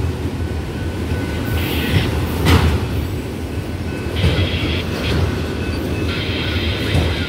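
Empty autorack freight cars rolling past: a steady rumble and clatter of steel wheels on the rails, with a sharp knock about two and a half seconds in.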